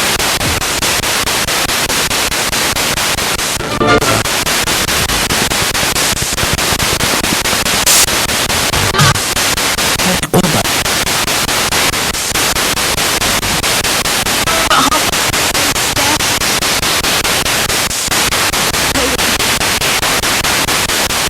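Spirit box radio scanner sweeping through stations: steady loud static chopped into rapid short slices, with brief snatches of broadcast voices and music breaking through now and then.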